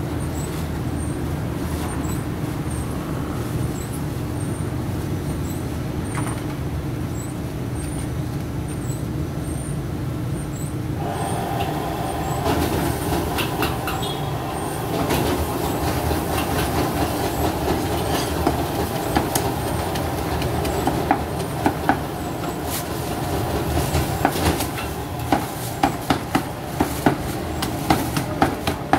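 Sharp knocks of a cleaver chopping roast duck on a wooden chopping block, starting about twenty seconds in and coming several a second near the end. Under them runs a steady low rumble of street and traffic noise, joined about eleven seconds in by a steady hum.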